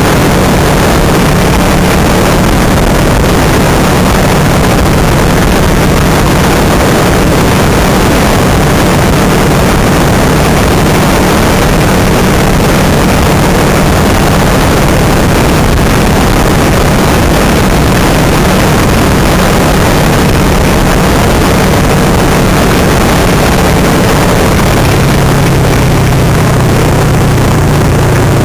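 Kawasaki Versys 650 motorcycle's parallel-twin engine running at a steady cruise under heavy wind rush on the handlebar-mounted camera. Near the end the engine note drops as the bike slows.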